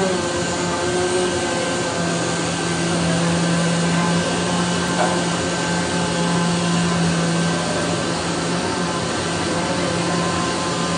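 Jindex CNC flatbed cutting machine running while it cuts medical gown material: a steady whirring hum, with a low tone that shifts slightly as the cutting head travels.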